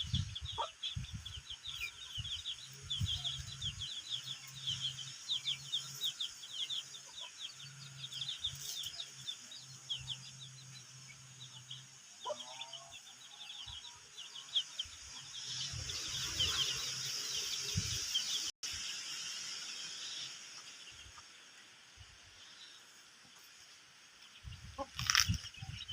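Chickens clucking amid rapid, high-pitched chirping, with a few sudden knocks.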